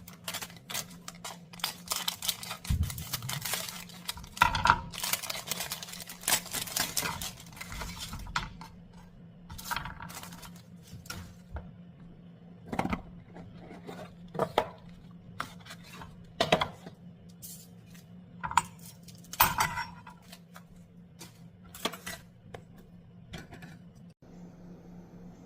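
Dishes and kitchen utensils handled and set down, making irregular clinks and knocks that are busiest in the first half, over a steady low hum. About a second before the end it cuts to a quieter steady hiss.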